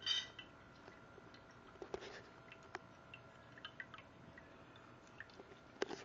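Abyssinian kittens lapping and splashing at an electric pet drinking fountain: scattered small wet clicks and drips, over a faint steady whine from the fountain's pump.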